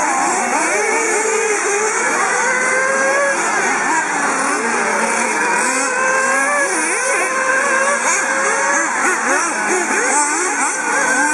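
Several 1/8-scale nitro RC buggy engines racing together, each revving up and down in pitch as the cars accelerate and brake, their overlapping tones forming a continuous loud buzz.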